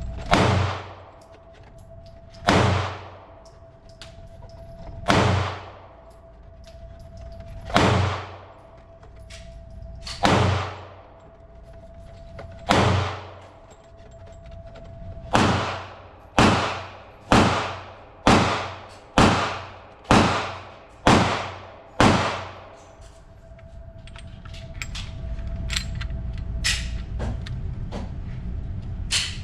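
Glock pistol firing fourteen shots, each with a ringing tail: six slow shots about two and a half seconds apart, then eight quicker ones about a second apart. A faint steady hum lies under them, and a rushing noise rises near the end.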